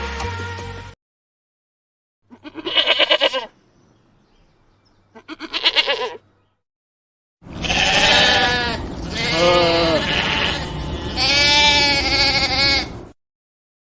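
Lamb bleating: two short bleats a few seconds apart, then three longer bleats in quick succession. Music ends about a second in.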